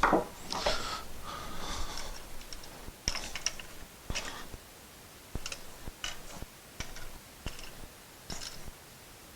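Light clicks, taps and rustles of hands working a three-way wall switch, its wires and terminal screws. There are about a dozen short sounds spread out, the loudest a burst of rustling at the start.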